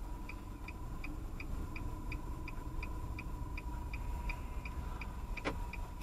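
Car's turn-signal indicator clicking evenly at about three clicks a second over the low hum of the engine, with a faint steady high tone behind it. One sharper click near the end.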